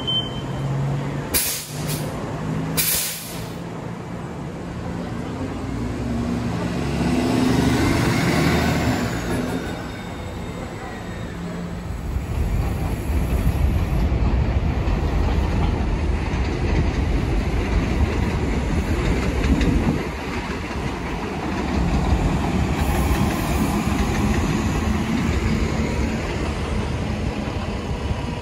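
Hybrid transit bus running, with two sharp knocks in the first few seconds. A rising-then-falling whine comes about eight seconds in, and a deeper rumble from about twelve seconds on.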